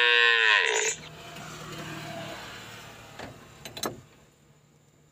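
Young calf mooing: one high-pitched moo that dips in pitch and ends about a second in. Two faint clicks follow later.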